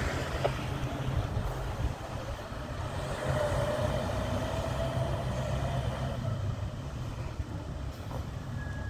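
Fire engine pulling away down the street, its engine a steady low rumble that drops a little about two seconds in.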